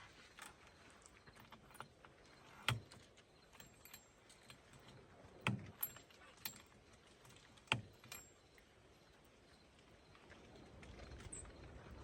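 Faint handling noises of tools and chainsaw parts during a spark plug change: a handful of sharp clinks and knocks, the loudest about two and a half seconds in and again a little past the middle.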